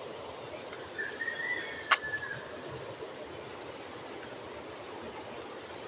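Insects, crickets among them, trilling steadily in high-pitched chorus in the vegetation. About a second in comes a short whistle, and just before two seconds a single sharp click.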